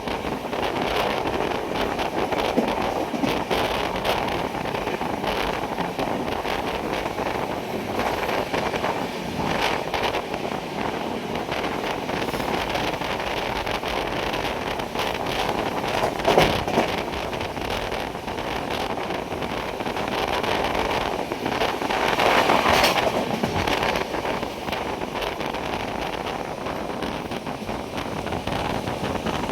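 Moving train running, with wind rushing over the microphone and many short clicks and rattles through a steady noise; it swells louder twice, around halfway through and again a few seconds later.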